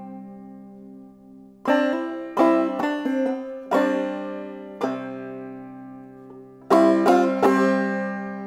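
Solo clawhammer banjo, played slowly: small groups of plucked notes left to ring out and fade, with pauses between the groups.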